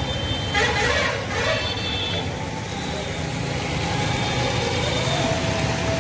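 Road traffic noise: vehicle engines running steadily, with a brief hiss about a second in and a few distant horns.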